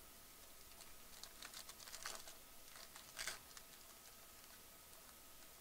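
Faint crinkling and crackling of a foil trading-card pack wrapper being handled and opened by gloved hands: a run of small crinkles from about a second in, and a louder crackle a little after three seconds.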